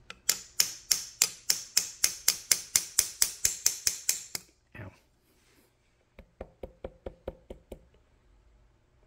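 Rotating shaper table being cranked for a fine setting: a steady run of sharp metallic clicks, about three a second for some four seconds. After a pause comes a second, fainter run of quicker clicks.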